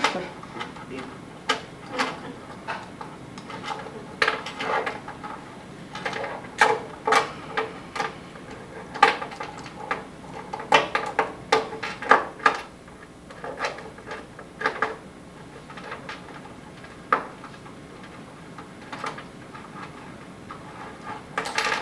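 Metal handcuffs clinking and rattling in many irregular short clicks while someone works at them to slip free.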